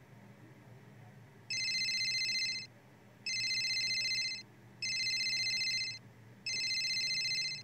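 Mobile phone ringing with an incoming call: an electronic trilling ringtone sounds four times, each ring about a second long with short gaps between them.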